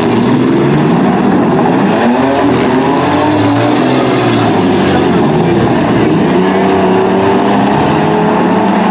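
Several mini truck and small SUV engines in a demolition derby revving hard, their pitch rising and falling as the wheels spin in the dirt.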